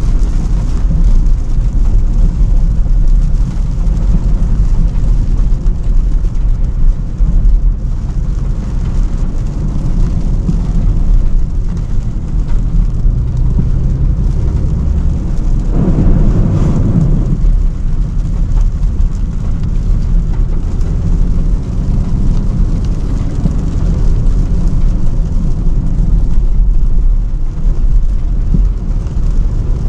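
Range Rover Sport driving: a steady low rumble of engine and road noise, with a brief swell about sixteen seconds in.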